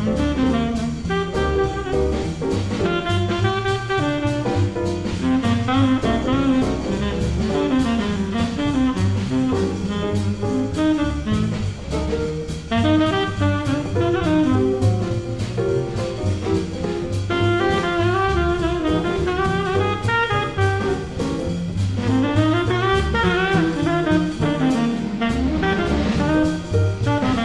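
Small-group jazz at a medium swing: a tenor saxophone plays the lead line over a drum kit with ride cymbal. Under it, a pizzicato upright bass, fitted with a pickup, walks steady even notes through the chord changes.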